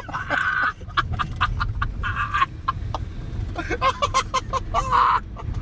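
People laughing hard in quick, breathy, cackling bursts, with a few voiced whoops near the end.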